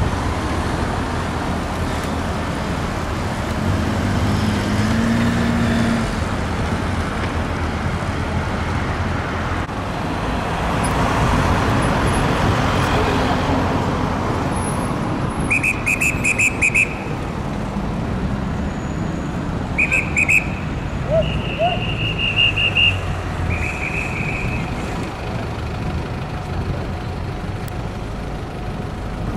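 Steady city road traffic, cars and taxis passing. About halfway through, four short, shrill trilling whistle blasts sound in quick succession.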